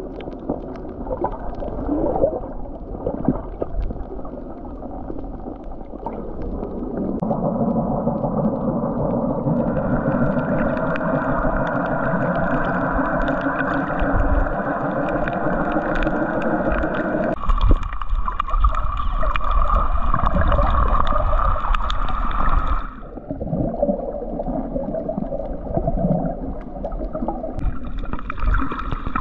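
Muffled underwater noise picked up by a camera below the surface. It is a steady rushing hiss whose tone changes abruptly several times: brighter about a third of the way in, duller past halfway, and brighter again near the end.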